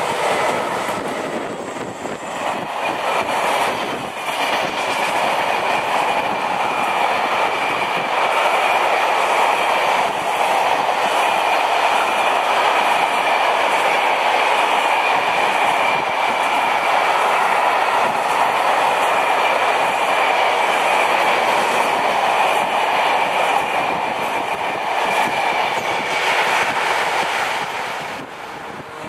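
Freight train of hooded coil wagons passing close: a steady rumble and clatter of wagon wheels on the rails, with a thin high steady tone running over it. It swells a few seconds in and falls away near the end.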